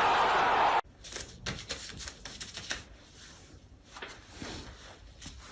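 Football stadium crowd noise from a televised match, cut off abruptly under a second in, followed by quiet scattered light clicks and taps.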